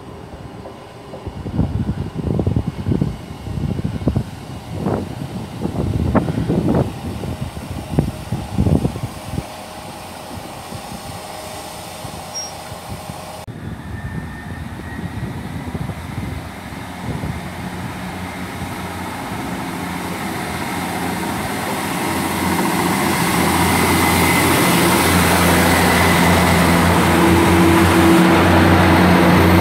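Class 158 diesel multiple unit at the platform, its underfloor diesel engines powering up and growing steadily louder as it pulls away, settling into a loud steady drone for the last several seconds. Irregular low thumps come and go in the first several seconds.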